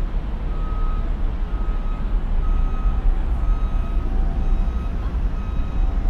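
An electronic warning beeper sounding a short tone about once a second over a steady low rumble of vehicle engine and traffic.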